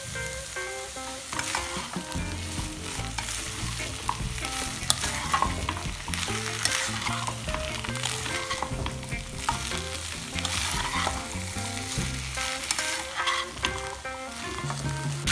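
Half-boiled carrots and peas sizzling in butter in a nonstick frying pan, stirred and tossed with a plastic slotted spatula that scrapes and taps against the pan again and again.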